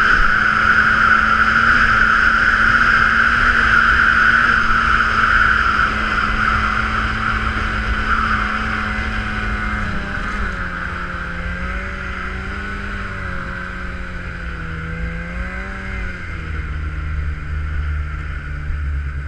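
Polaris snowmobile running under throttle with a strong high whine over the engine note, held steady at first. About halfway through the revs drop and waver up and down as the sound eases off.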